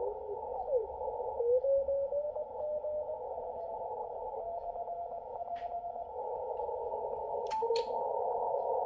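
Yaesu FTdx5000MP receiver audio: band hiss heard through a narrow filter, with a thin whistle tone that glides briefly and then steps upward in pitch over several seconds. Two sharp clicks come near the end.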